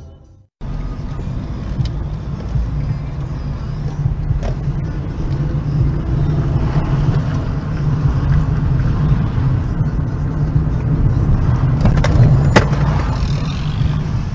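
A car's engine and road noise heard from inside the cabin as it drives: a loud, steady low rumble. It starts after a brief gap, and there is a single sharp click about twelve seconds in.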